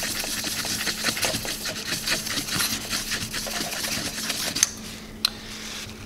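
Paper napkin scrubbing across the metal fins of a CPU heatsink in quick, scratchy, rasping strokes, wiping off old thermal paste softened with thermal compound remover. The scrubbing eases after about four and a half seconds, and a couple of light clicks follow.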